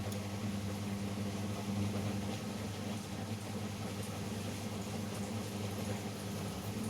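Steady low hum of a running electrical appliance or small motor, with a few faint light ticks.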